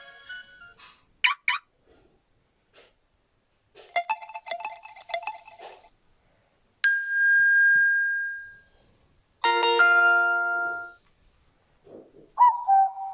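Huawei phone notification tones played one after another with short silences between: a couple of quick pips, a brief multi-note chime, a single ding that rings out for about two seconds, a fuller chord-like tone, and a short chirp near the end.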